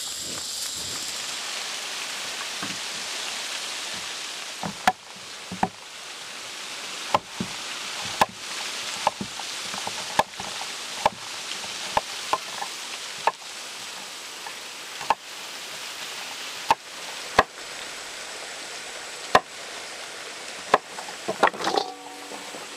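Knife chopping on a cutting board: single sharp knocks at an uneven pace, roughly one a second, starting about five seconds in, over a steady hiss.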